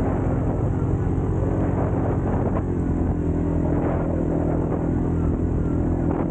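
ATV engine running steadily while riding, its pitch shifting slightly about three seconds in.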